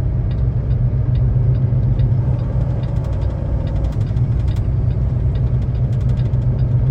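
Semi truck's diesel engine running steadily in a low gear, heard from inside the cab, with scattered light clicks and rattles from the snow chains on the drive tires shaking the truck.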